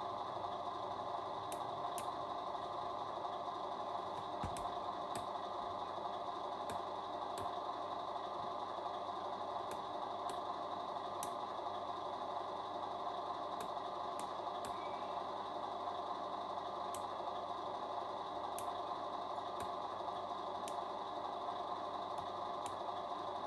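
Steady engine idle sound from a scale RC truck's sound module, with faint scattered ticks.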